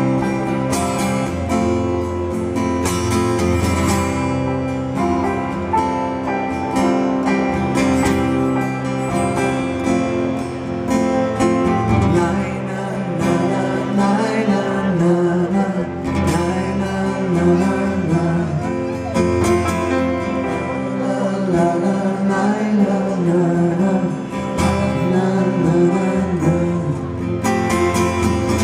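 Live amplified band music: the instrumental opening of a song, led by an acoustic guitar and heard through a stage PA.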